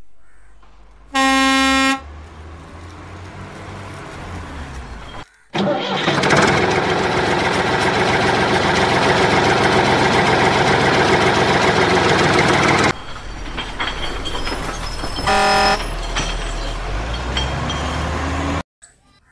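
Vehicle horn tooting about a second in and again near the end, around a vehicle engine running: first a low rumble, then a loud steady engine sound for about seven seconds, then quieter.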